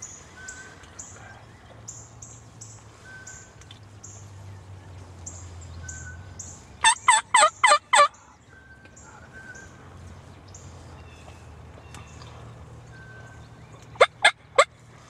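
Eastern wild turkey gobblers gobbling twice: a loud gobble of about five quick notes about seven seconds in, and a shorter three-note gobble near the end.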